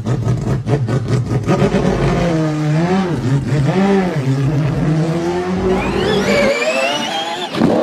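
Mazda 787B race car's four-rotor rotary engine, pulsing roughly at first, then revving up and down twice. Over the last two seconds it climbs to a high-pitched scream.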